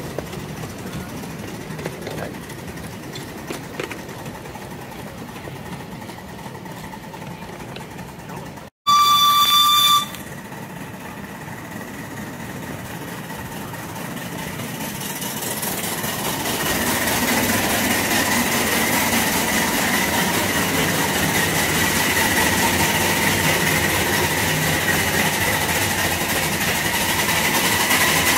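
Miniature steam railway train running along the track, with a loud whistle blast lasting about a second a third of the way in. The train then runs into a tunnel: the running noise of the cars grows louder and echoes, with a steady high wheel squeal.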